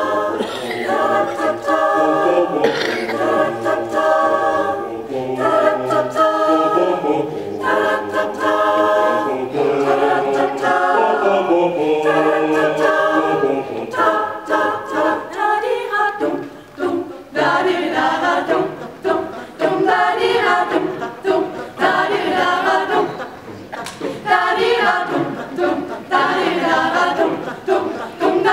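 Mixed choir of men's and women's voices singing a cappella in harmony, moving from chord to chord.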